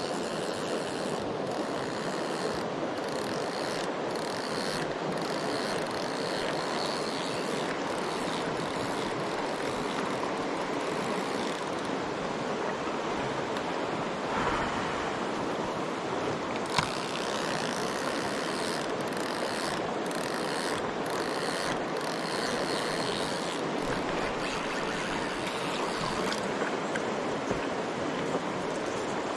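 Mountain stream water rushing steadily, with one sharp click about halfway through.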